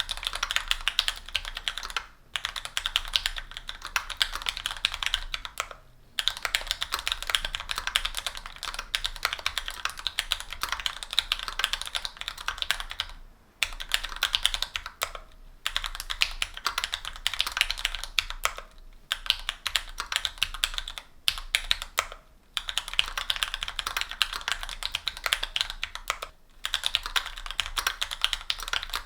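Mechanical keyboard with stock Gateron Pro Brown 45 g tactile switches, an aluminium plate and GMK keycaps, typed on quickly in runs of clicky keystrokes broken by short pauses every few seconds.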